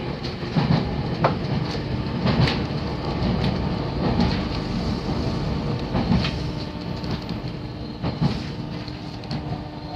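JR 313 series electric train heard from inside the carriage while running: a continuous rumble with irregular clicks and knocks from the wheels on the track, and a steady hum joining in partway through.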